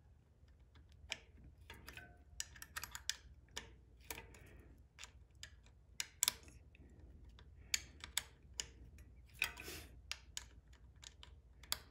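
Irregular light clicks and taps of a hand tool working loose a mounting screw on a bicycle's mechanical disc brake caliper.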